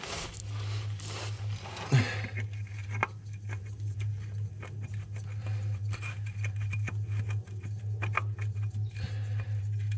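Small scratching and ticking as a spin-on oil filter is turned by hand onto its threaded mount, with a few sharper clicks, over a steady low hum.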